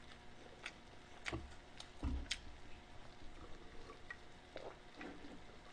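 Faint, scattered clicks and soft knocks of handling at the table, about half a dozen, the loudest a soft knock about two seconds in.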